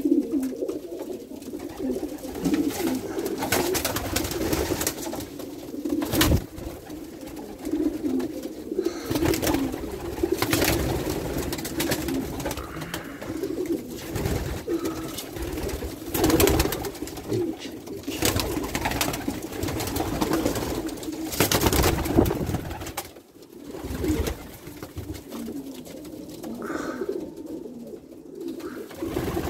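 A flock of racing pigeons cooing in a loft: a steady, overlapping low cooing, with short louder noises breaking in every few seconds.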